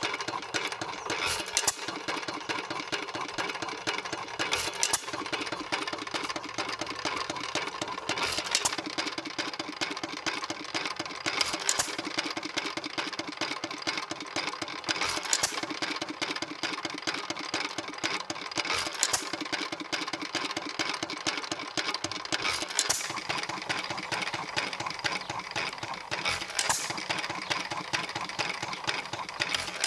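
1 1/2 HP Worthington hit-and-miss engine running on its own, firing a strong power stroke about every three and a half seconds and coasting on its flywheels in between with a rapid steady clicking.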